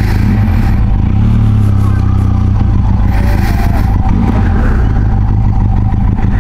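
Benelli TRK 502X's parallel-twin engine running steadily as the motorcycle rolls slowly across grass.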